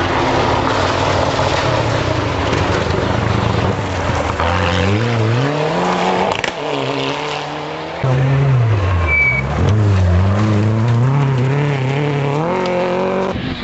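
Rally car engines at high revs, the pitch climbing hard and dropping several times as the drivers accelerate and lift off, with tyres skidding on the dirt as the cars slide past.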